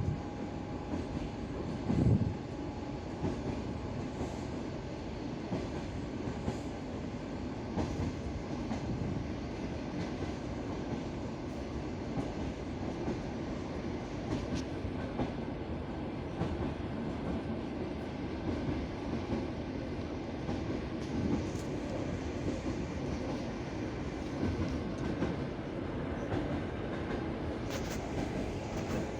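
Passenger train running on jointed track: the wheels clack over the rail joints over a steady rumble of the carriage, with a louder knock about two seconds in.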